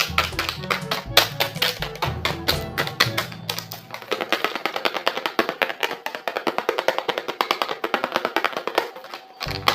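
Background music with a fast, steady percussive beat; the bass drops out about three and a half seconds in and returns near the end.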